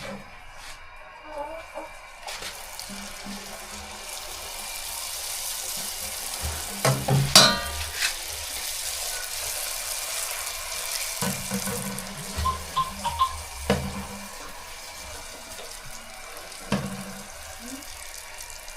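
Water running steadily, as from a kitchen tap or sink, with a few sharp knocks.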